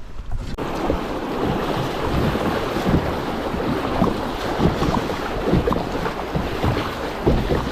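Wind buffeting the microphone over rushing water, with irregular low thumps; it starts suddenly about half a second in and holds steady.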